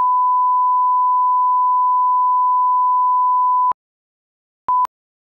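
Steady 1 kHz reference tone of a broadcast colour-bar leader, cutting off about three and a half seconds in. About a second later comes one short countdown beep at the same pitch, the first of a once-a-second leader countdown.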